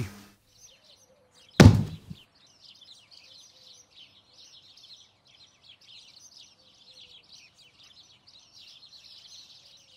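A single heavy thud about a second and a half in, then faint birdsong of many quick chirps.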